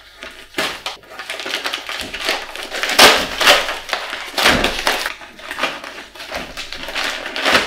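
Yellow paper wrapping crinkling and tearing as a wrapped package is slit with a knife and pulled open by hand. The loudest crackles come about three and four and a half seconds in.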